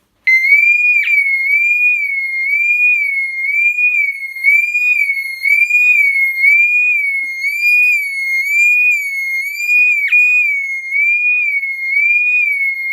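Ventcroft Classic Compact alarm bell box sounding its electronic siren. One high tone sweeps up and down about one and a half times a second, starting abruptly just after the start and holding steady, with two short clicks over it.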